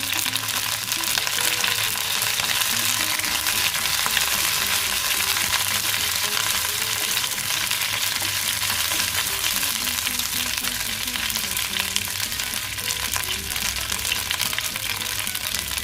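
Curry leaves and dried red chillies sizzling and crackling steadily in hot coconut oil in a pan.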